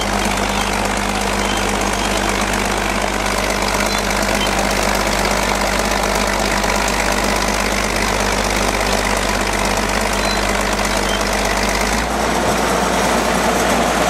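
Bulldozer's diesel engine running steadily, its low hum changing in pitch about twelve seconds in.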